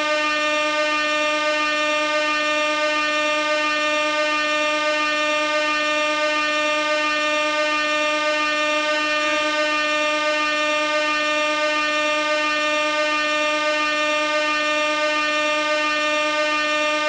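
Gas-powered air horn blowing one unbroken blast, steady in pitch and loudness.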